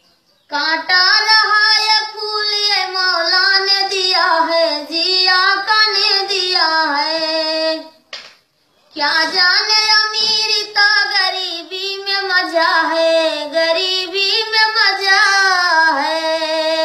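An elderly woman singing unaccompanied in a high voice, with pitch bending and sliding through the melody: two long phrases with a short break for breath in the middle.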